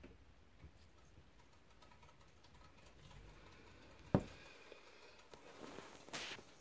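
Dwarf hamster nibbling seeds at its food bowl: faint, scattered small clicks. A single sharp knock a little after four seconds is the loudest sound, followed by a short rustle near the end.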